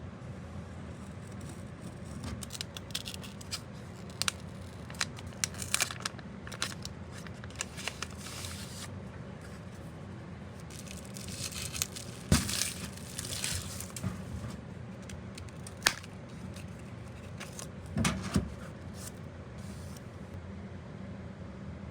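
Packaging being opened and handled by hand: irregular crinkling, tearing and sharp clicks, loudest about twelve and eighteen seconds in, over a steady low hum.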